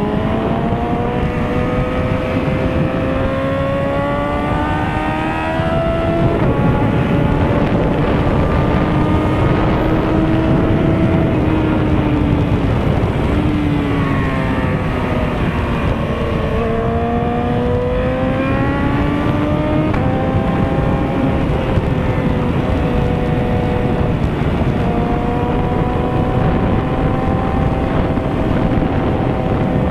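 A 1000 cc inline-four sport bike engine under hard riding, its pitch climbing through the gears over the first few seconds with a drop at each shift, easing off near the middle and then pulling up again, over steady wind rush.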